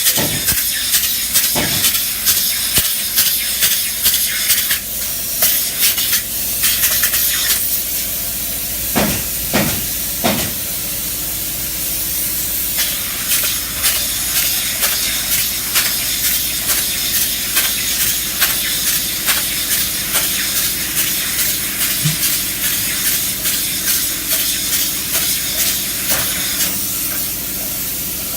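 Spray insulation gun hissing steadily as it sprays, with many irregular short clicks and crackles over the hiss and a couple of heavier knocks about nine and ten seconds in.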